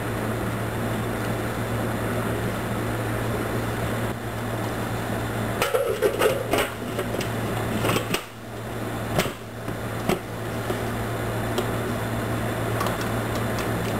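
Small electric food processor running steadily, blending chickpeas, tahini and lemon juice into hummus; the motor stops briefly twice, a little after 8 s and just after 9 s, as if pulsed.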